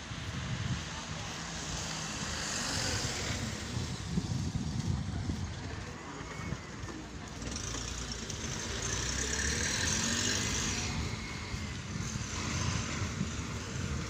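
Street traffic: a minivan's engine and tyres pass close by and it drives off down the road, loudest about ten seconds in, over steady outdoor rumble.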